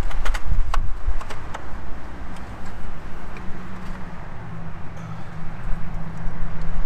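Wind rumbling on the microphone, with several sharp metallic clicks in the first second and a half and a steady low mechanical hum through the second half.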